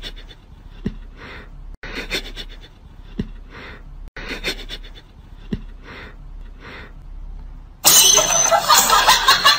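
A cat sniffing at a sock in short breathy puffs, about one a second, each with a faint click. About eight seconds in, a sudden loud, dense noisy sound takes over.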